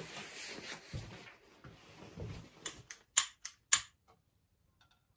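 Rustling and handling noise, then about four sharp clicks in quick succession from the trigger of a long-reach gas lighter being pressed to light a small pellet stove.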